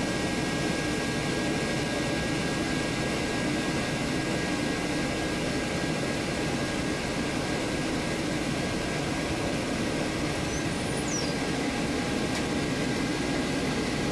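Hanshin RCH-7 rotary screw air compressor running steadily: an even mechanical drone with a thin, steady whine over it.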